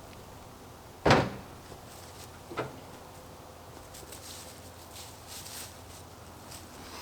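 Two knocks: a sharp, loud one about a second in and a lighter one about a second and a half later, followed by faint rustling.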